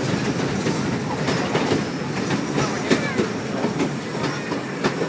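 Train heard from on board, rolling along the track: a steady rumble with irregular clicks and clacks from the wheels on the rails, the sharpest about three seconds in and near the end.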